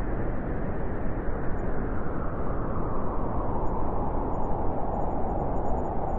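Strong wind howling steadily, with its hollow, whistling tone growing more pronounced in the second half.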